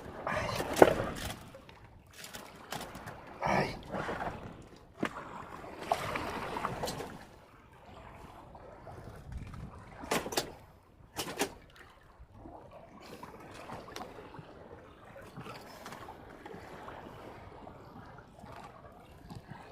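Sea water lapping and splashing against a small boat's hull, coming and going in irregular swells, with a few sharp knocks.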